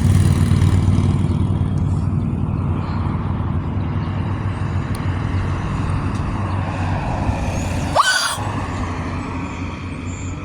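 A motor vehicle's engine running with a steady low rumble that slowly fades away. About eight seconds in, a brief rising squeak.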